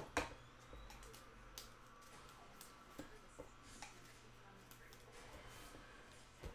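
Basketball trading cards being handled and set down on a table: a few light clicks and taps, the sharpest just after the start, over a faint low hum.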